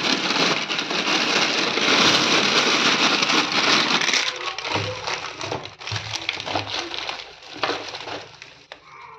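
Thin plastic bags rustling and crinkling as they are handled: a dense, continuous rustle for about four seconds, then broken crinkles and crackles.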